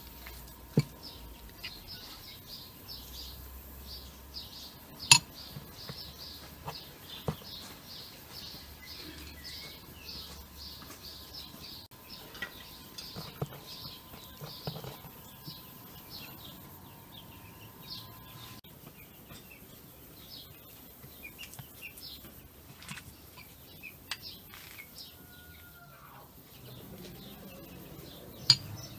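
Metal spoon clinking against a glass bowl as filling is scooped out: a handful of sharp clinks, the loudest about five seconds in and another near the end. Small birds chirp rapidly throughout, most densely in the first third.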